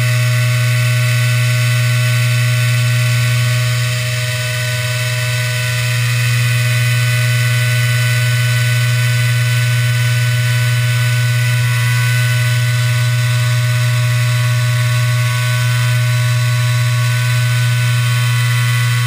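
Hobby CNC router cutting sheet stock: the spindle motor runs with a steady hum and whine as the bit mills the sheet. The level dips slightly about four seconds in and again near fifteen seconds.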